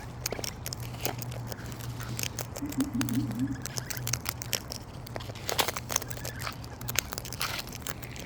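Sulphur-crested cockatoos cracking and husking seed in their beaks close by: irregular sharp crackling clicks, over a steady low hum.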